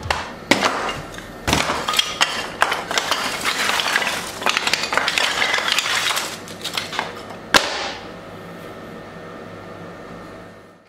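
Split wooden kindling sticks clacking and clattering against each other and the workbench as they are gathered up by hand, with a few sharper knocks; after about eight seconds only a faint steady hum remains.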